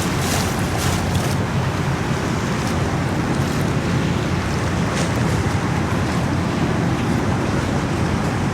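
Steady outdoor rumble of wind on the microphone over harbour water, with a few faint ticks near the start and about five seconds in.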